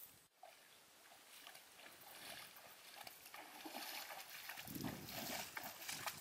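Water splashing and sloshing as legs wade through shallow pond water. It starts faint and grows louder in the second half.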